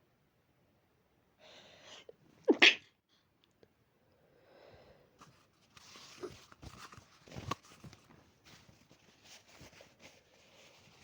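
A person's allergy sneeze: a short breath in, then one loud, sharp double-peaked sneeze about two and a half seconds in. Softer rustling and handling noises follow.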